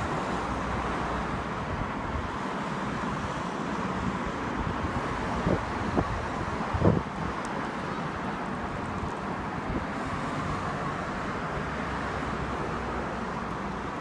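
Steady outdoor background noise of wind on the microphone and a traffic hum, with a few brief low thumps of wind buffeting the microphone between about five and seven seconds in.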